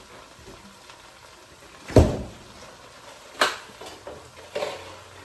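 Three sharp knocks in a kitchen, roughly a second apart, the first the loudest and deepest.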